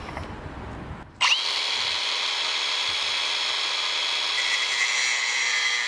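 Handheld grinder spinning up sharply about a second in, then running on at a steady high-pitched whine.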